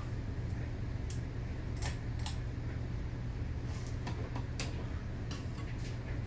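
52-inch Emerson Premium ceiling fan's motor running during a startup test, a steady low hum with scattered light clicks and ticks.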